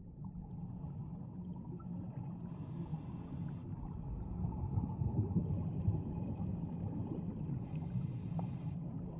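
Scuba diver breathing through a regulator underwater: two hissing inhalations about five seconds apart over a steady low rumble.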